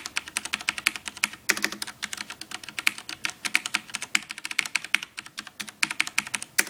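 Rapid typing on a Rosewill RK-9000BL mechanical keyboard with Cherry MX Black switches. These linear switches have no click, so each keystroke is a plastic clack as the key bottoms out.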